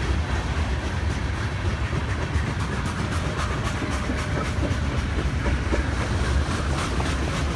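Siemens SC-44 Charger diesel locomotive and its test train moving through a station: a steady low rumble of engine and wheels, with light clicking from the rails.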